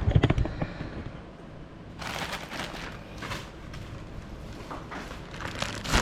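A parcel being handled and opened: a quick cluster of knocks at the start, then crackling rustles of packaging from about two seconds in.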